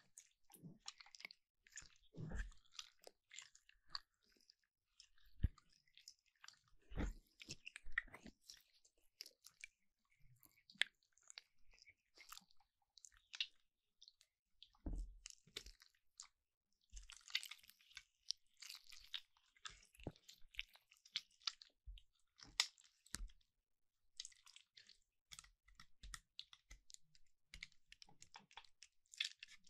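Slime being squished and stretched by hand, making quiet, irregular crackles and clicks with a few soft low thuds.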